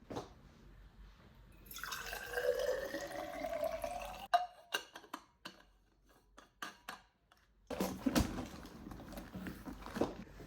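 Liquid being poured into a cup or glass, the pitch rising as it fills, followed by a run of light clicks and taps.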